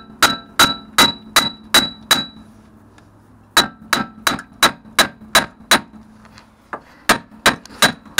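Hammer blows on metal, about three a second in three runs with short pauses between them; the first run of strikes rings with a clear metallic tone.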